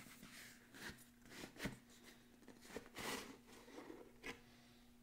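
Faint rustling and sliding of a hardcover book being handled in its cardboard slipcase, with a few soft clicks and a louder scrape about three seconds in.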